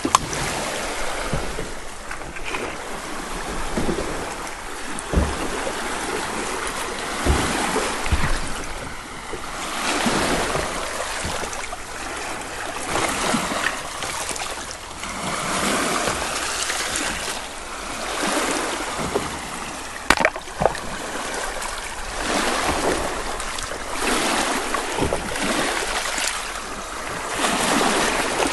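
Small lake waves washing in over a pebble and cobble shore, the wash swelling and fading every few seconds.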